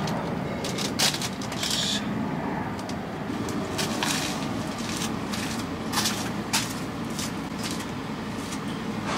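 A few short sharp clicks and knocks, as of tools and parts being handled, over a steady background hiss; a brief hiss about two seconds in.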